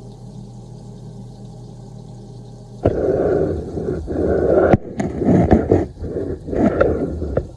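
Steady hum of a kitchen range hood fan. About three seconds in, loud, irregular scraping and several sharp knocks begin, like cookware being handled.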